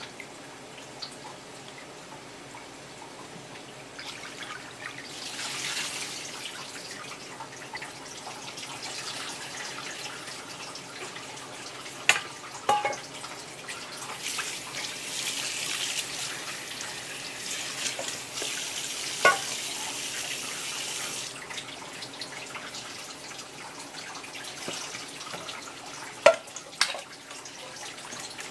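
Tap water running and splashing into a stainless steel bowl as boiled clam meat is rinsed, first briefly and then for about seven seconds. A few sharp clinks of metal against the bowl are heard, one of them near the end.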